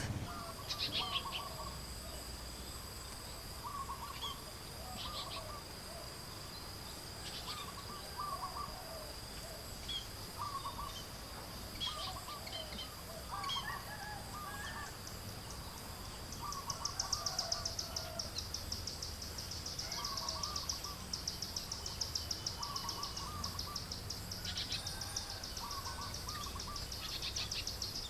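Outdoor nature sounds: short animal calls repeating every second or two over a steady high-pitched drone. About halfway through, a fast pulsing high trill joins in.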